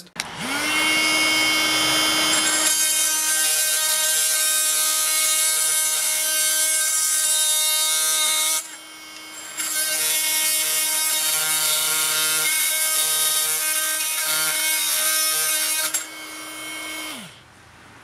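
Makita DTM52 brushless cordless oscillating multi-tool with a metal-cutting blade soft-starting into a steady high buzz, then cutting through a nail in timber with a harsh grinding rasp over the buzz. The cutting noise lets up briefly about halfway, and near the end the tool winds down and stops.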